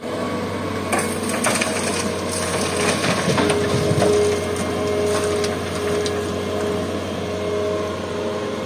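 Hitachi EX200 excavator's diesel engine running under load with a steady hum and whine, while a bucketload of soil pours into a steel dump-truck bed, crunching and clattering over the first several seconds.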